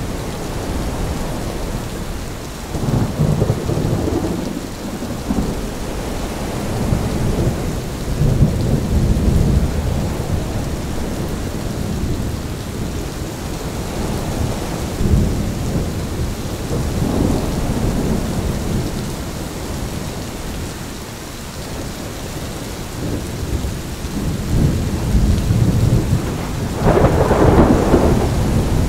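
Thunderstorm: steady rain with gusts of wind, and thunder rumbling several times in low swells, the loudest roll near the end.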